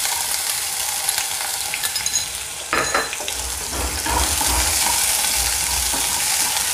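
Chopped garlic and ginger sizzling steadily in hot oil in a nonstick frying pan, with a louder burst of crackle about three seconds in.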